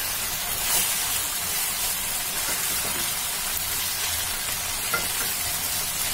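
Soya chunks, capsicum and onion in sauce sizzling in a kadhai over a high gas flame as they are stirred with a perforated steel skimmer. The skimmer clicks against the pan about a second in and again near the end.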